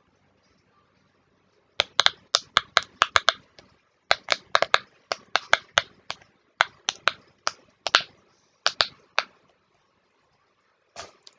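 Sharp plastic clicks from a fidget toy being played with, coming quickly in bursts of several, with short pauses between the bursts and one last click near the end.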